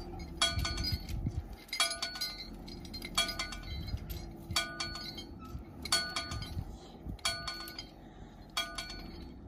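A ringing, bell-like metallic chime repeats evenly about every second and a half, over the low, steady running of a crane truck's engine as it pulls under load.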